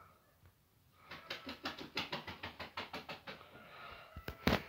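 A quick run of light taps or clicks, about eight a second for some two seconds, then a couple of sharper knocks near the end, the last one the loudest.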